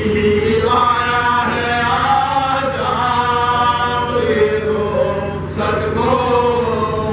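Group of men chanting a soz, an unaccompanied elegiac mourning lament, in long held notes, the lead reciter's voice joined by the others. A steady low hum runs underneath.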